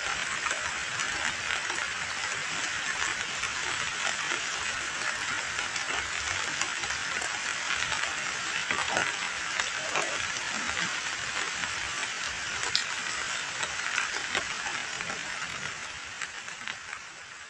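Rain falling onto muddy standing water, a steady dense hiss made of many small crackling drop splashes, easing off a little near the end.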